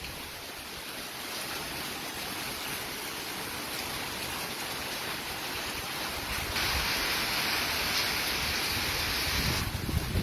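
Heavy rain pouring steadily, an even hiss that grows louder for about three seconds from around six and a half seconds in.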